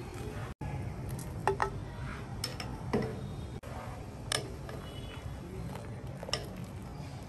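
A long metal hook clinking and scraping against the inside of a stainless steel cooking pot several times as squid is dunked and stirred in boiling water, over a steady low hum.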